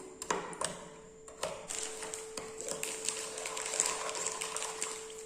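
A spoon stirring borax powder into hot water in a small bowl, ticking and scraping against the bowl in irregular light clicks, over a faint steady hum.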